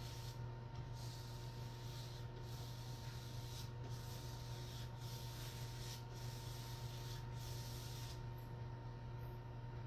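Paint roller rolling paint onto a wall in steady back-and-forth strokes, a hissy rubbing sound that breaks at each turn about once a second, over a steady low hum.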